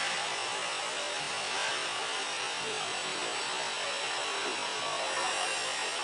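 Steady, even hiss of background noise, unchanging throughout.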